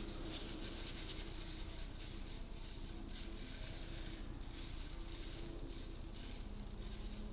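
Table salt being shaken out of a canister onto the glue-covered paper, the falling grains making an uneven run of small dry ticks.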